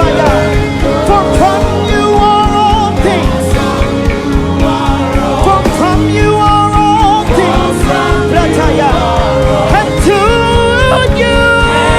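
Live gospel worship music: a band playing with a steady bass, with sustained sung melody lines over it.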